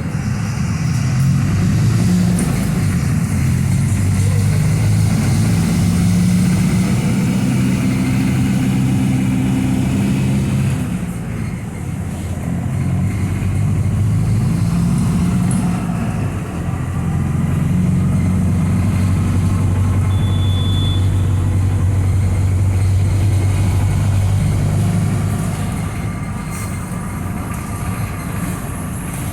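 Mercedes-Benz OF-1721 BlueTec 5 bus's diesel engine pulling under load. Its note rises, drops back at a gear change or lift-off, builds again and eases off near the end.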